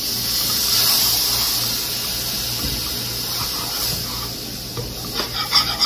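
Cold water poured into a hot flour-and-grease roux in a skillet, hissing as it hits the pan and turns to steam; the hiss starts suddenly, is loudest in the first second or two and slowly fades. Near the end a wire whisk starts clicking against the pan.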